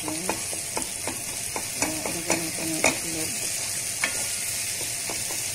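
Tomato, onion and chili sautéing in a stone-coated frying pan with a steady sizzle, while a wooden spoon stirs and knocks against the pan in about ten irregular taps.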